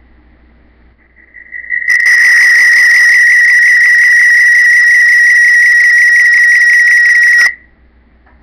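A loud, shrill whistle with a rapid flutter. It swells up over about a second, is held on one pitch for about five and a half seconds, then cuts off suddenly.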